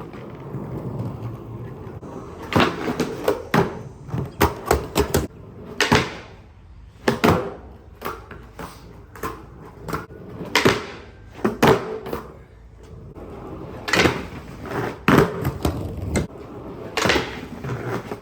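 Skateboard wheels rolling on concrete, broken by many sharp clacks and knocks of the board's tail and trucks striking, as the skater does blunt stalls.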